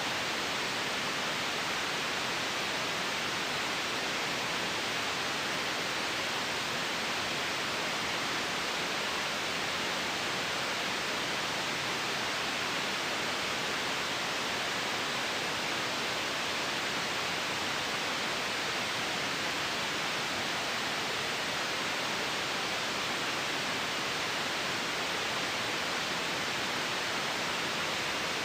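Continuous white noise: a steady, unchanging hiss.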